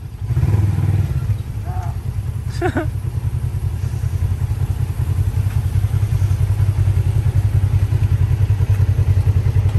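Polaris RZR side-by-side's twin-cylinder engine running at low speed with a rapid, even pulse, growing louder over the second half as it is manoeuvred.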